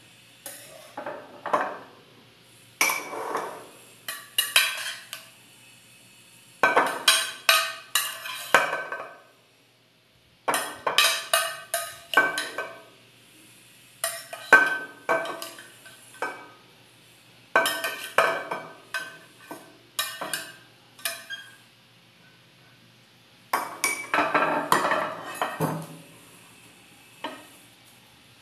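Metal spoon scraping and clinking against glass dishes as fruit salad is scooped from a glass baking dish and dropped into a glass jar, in repeated bursts of clatter with short pauses between scoops.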